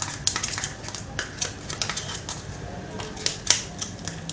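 Homemade slime being mixed and kneaded by hand, making quick, irregular sticky clicks and pops.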